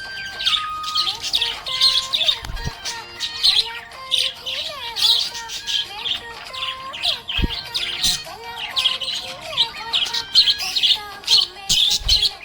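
Budgerigars chattering: a dense, continuous stream of quick high chirps, warbles and squawks.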